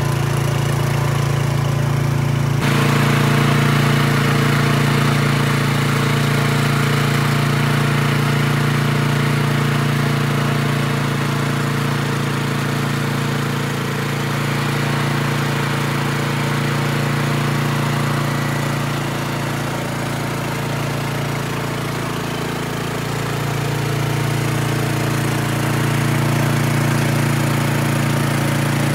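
Small engine running steadily at a constant speed, with a steady hiss joining a few seconds in.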